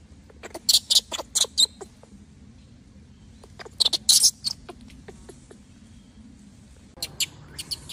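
Newborn macaque giving short, high-pitched squeals in quick runs: about five in the first two seconds, another cluster around four seconds in, and more near the end. These are the distress cries of an infant that cannot get to nurse.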